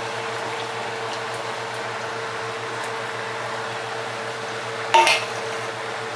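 Chicken searing in a pot, a steady sizzle over a constant hum, with one sharp ringing clank against the cookware about five seconds in.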